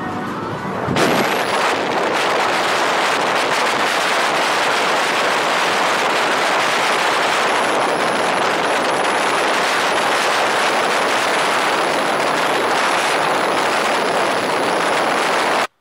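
Wind rushing over the microphone of a camera held out the window of a moving car, a Scion xB, along with road noise. It is quieter for the first second, while the camera is inside the cabin, then gets loud and steady, and it cuts off suddenly near the end.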